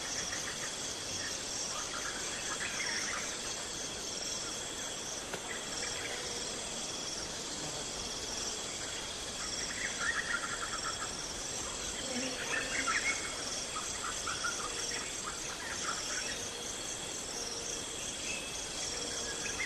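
Nature ambience of insects trilling steadily in a fast pulsing chorus, with birds chirping and calling here and there over it.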